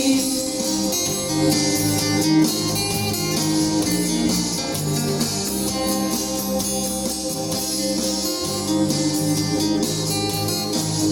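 Band music: a guitar-led instrumental passage with strummed guitar over a steady bass line.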